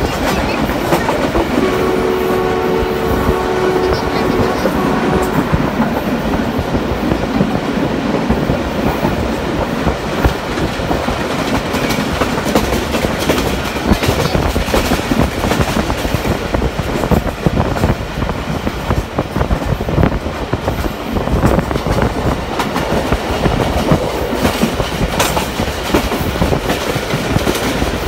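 Passenger train running at speed, heard from inside a coach: a steady rumble and rush with the clatter of wheels over the rails. About two seconds in, a two-tone train horn sounds for about three seconds.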